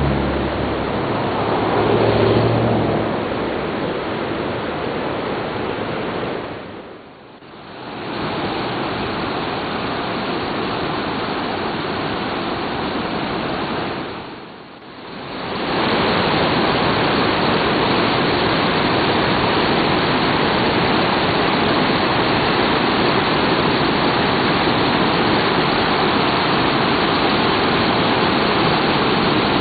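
Steady rushing of river rapids, white water tumbling over boulders. The sound drops away briefly twice and is loudest and most even over the last half, with a low rumble at the very start.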